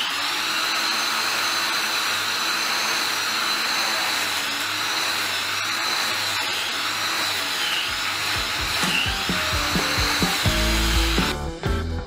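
Angle grinder with a wire-brush attachment scouring old plaster off a brick wall, a steady high whine over a harsh scraping noise, the pitch dipping now and then as the brush is pressed in. Background music fades in about two-thirds of the way through, and the grinder cuts out near the end, leaving the music.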